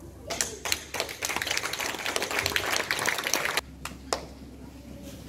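Audience applauding: scattered claps build into steady applause that stops suddenly after about three and a half seconds, followed by a couple of lone claps.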